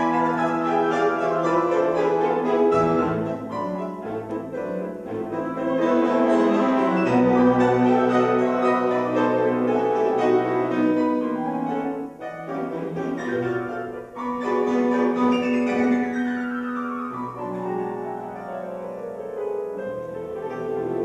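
Grand piano and symphony orchestra playing a piano concerto: piano passages over sustained bowed strings, with a long descending run in the last few seconds.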